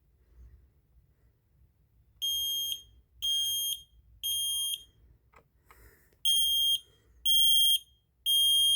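Kidde smoke alarm sounding the temporal-three alarm pattern: two sets of three high-pitched beeps, each about half a second long, with a pause between the sets.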